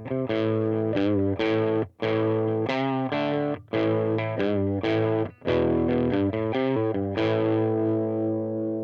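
Distorted electric guitar played through a Revoltage RV-15T tube combo amplifier: a riff of short struck chords with brief gaps, ending on one chord left ringing that fades out near the end.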